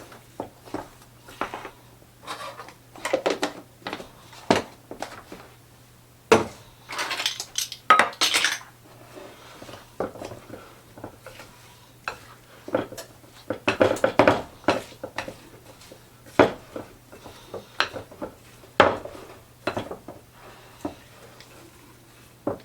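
A utensil stirring and scraping chunky cake batter with chopped rhubarb in a mixing bowl. It makes irregular clinks and scrapes against the bowl, in uneven bursts of strokes.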